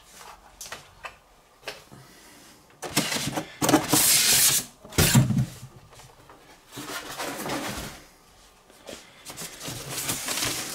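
Handling noises from the monitor stand being worked by hand: scattered clicks, then a loud sliding rustle from about three to five seconds in, ending in a knock, followed by quieter rustling and a few clicks.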